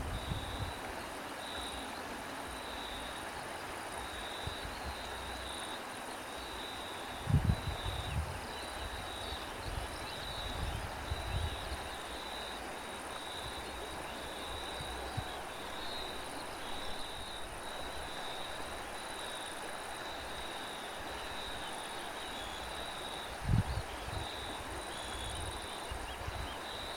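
Crickets chirping in a steady, even pulse over a constant hiss. Wind buffets the microphone in low gusts about seven seconds in and again near the end.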